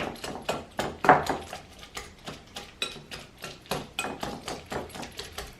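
Wire whisk mashing ripe bananas in a bowl: repeated dull strikes against the bowl, about three a second, the loudest about a second in.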